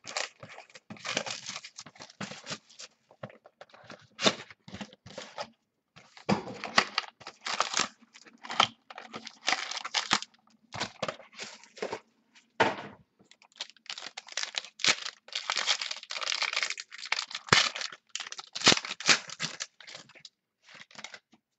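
A gold-foil trading card box and its wrapping being torn open by hand: repeated irregular ripping and crinkling of foil and cardboard, with short pauses between rips.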